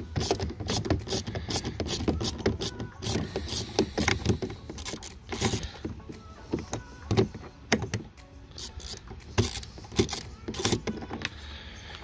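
Screwdriver turning out the Torx screws of a car's interior door pull handle: a run of irregular clicks and ticks, several a second, from the tool working in the screw heads and the plastic handle frame.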